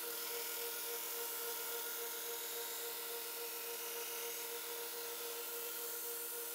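Belt grinder running with a steady motor whine and a hiss of steel on abrasive as a heat-treated Damascus chef knife blade is ground against the belt in its final grinding.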